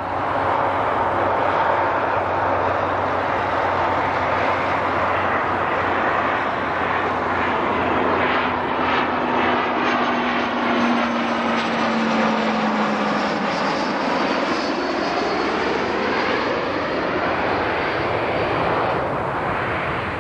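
Business jet with twin rear-mounted turbofans flying past low on landing approach: steady jet engine noise, with a high whine that falls in pitch during the second half as it goes by.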